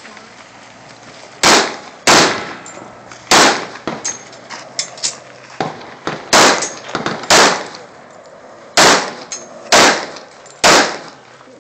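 Gunshots on a shooting range: about eight loud single shots, fired at an unhurried, uneven pace, often a second or so apart with longer pauses between groups, with fainter sharp knocks in between.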